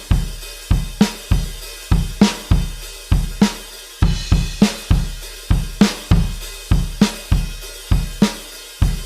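Programmed drum kit playing an alternative rock beat: kick drum, snare backbeat, hi-hat and cymbal in a steady groove that repeats as a loop.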